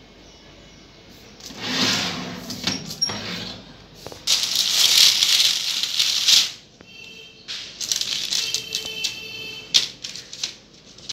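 Rustling and clattering from a parchment-lined metal baking tray of cookies being handled, in irregular bursts, with a loud rustle in the middle and clinking near the end.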